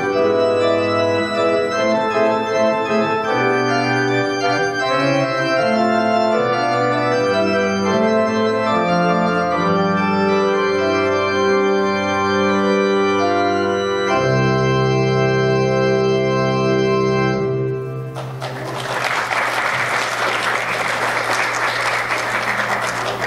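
Organ-toned keyboard music playing a closing piece in sustained chords, ending on a long held chord. Near the end the music stops and people break into applause.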